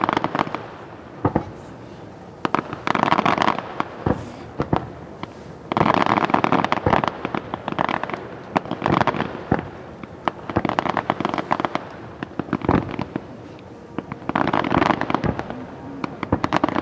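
Fireworks going off: single bangs and about five bursts of dense crackling, each about a second long, every few seconds.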